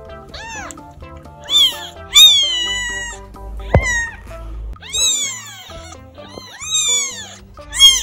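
A very young kitten mewing, about six short high-pitched cries, one of them longer with a falling pitch about two seconds in, over background music.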